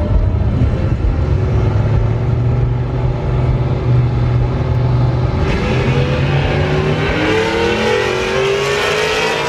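Two pickup trucks' engines running at the drag strip starting line. A little over halfway through they rev up and pull away in a drag race, their pitch climbing steadily over the last few seconds.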